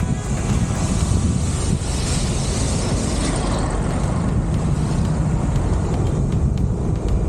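Motorcycle running along the road, its engine and tyre noise mixed with wind buffeting the microphone.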